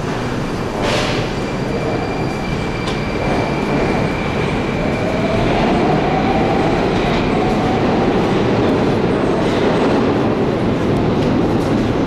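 Moscow metro train running through the station, heard as a steady rumble in the echoing tiled passageway, growing a little louder midway. A thin high tone holds for several seconds, and a faint rising motor whine comes in the middle.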